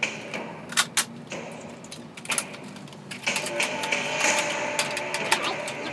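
Sharp plastic clicks and clatter of toy Nerf blasters being picked up and handled, coming irregularly throughout.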